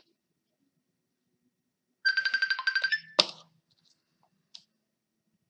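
Rapid electronic beeping, a fast trill of one pitched tone, starting about two seconds in and lasting about a second, followed by a single sharp click and a fainter click a little later.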